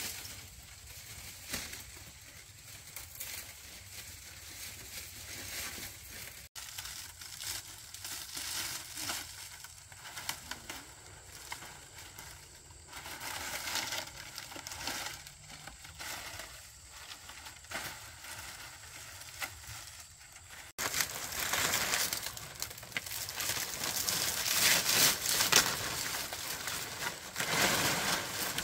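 Irregular rustling, scraping and crunching handling noise, with sharp breaks twice; it gets louder for the last several seconds.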